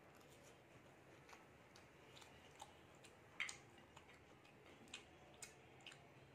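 Faint, scattered clicks and smacks of someone eating biryani with the hand, with one louder click about three and a half seconds in.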